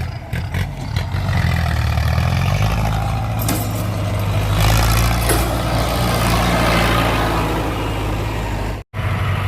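Ford 6610 tractor's four-cylinder diesel engine running steadily under load while pushing wet soil. The sound drops out for a split second near the end.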